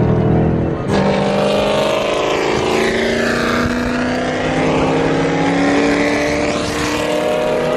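Car engines running on the move, heard from inside a car, as a Ford Mustang GT drives alongside. The engine note climbs slowly and steadily, and a second, noisier sound sweeps down and back up in the middle.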